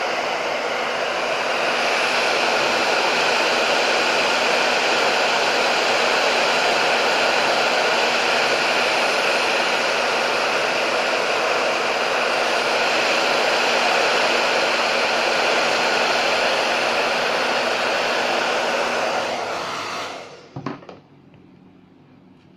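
Handheld hot-air blower running steadily, heating the MacBook Air display to soften its adhesive. It is switched off about twenty seconds in, followed by a light knock.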